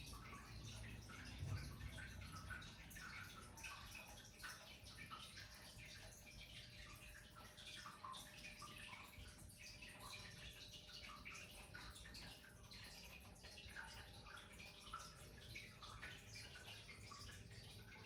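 Near silence with faint, scattered wet clicks and crackles throughout.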